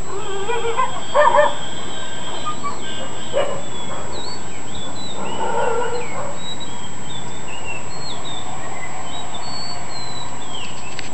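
Dogs barking and yelping, in a burst about a second in and again near three and a half and six seconds, with small birds chirping between the barks.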